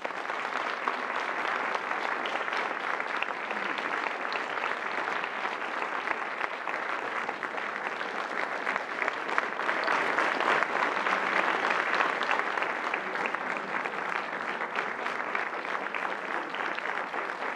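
Audience applauding: many hands clapping in a dense, continuous patter that swells a little about ten seconds in.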